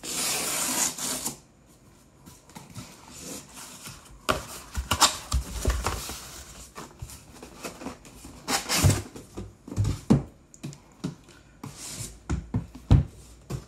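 A cardboard shipping box being opened and emptied: a short ripping noise at the start, then irregular scraping, rustling and knocks of cardboard as the boxed tablet is slid out.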